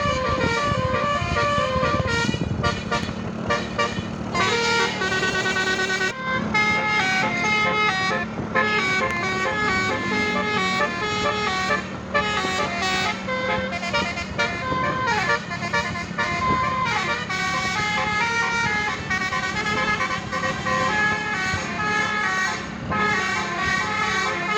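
Basuri 'telolet' multi-tone bus horn playing fast melodic runs, its notes stepping up and down in quick succession over a steady low hum. A held high note about five seconds in is followed by a brief break before the runs go on.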